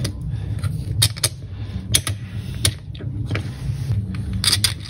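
Hands handling small M3 screws and 3D-printed plastic extruder parts: a low rustling rumble with a few sharp little clicks of screw and plastic against each other.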